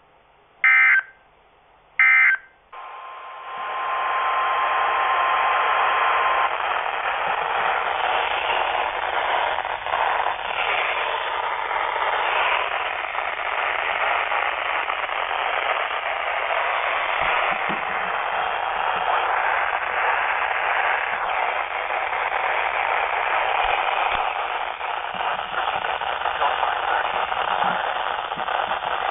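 The last two of the three end-of-message SAME data bursts from a NOAA weather radio, short loud buzzy blasts about a second apart. The receiver then falls to a steady static hiss, with a faint steady tone for the first few seconds of it.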